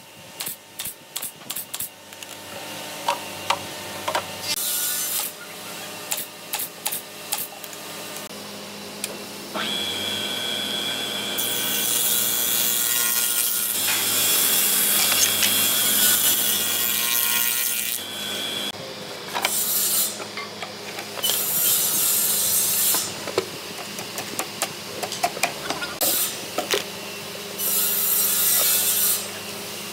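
A pneumatic brad nailer fires a rapid run of sharp shots into a wooden cabinet box. Then a spindle moulder runs and cuts along the edge of a panel for several seconds, a steady machine whine under loud cutting noise. More nailer shots and short bursts of cutting come near the end.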